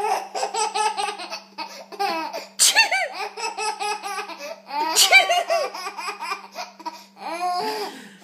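A baby laughing at its mother's sneezing, in fits of belly laughter that break out afresh, loud and sharp, about two and a half and five seconds in.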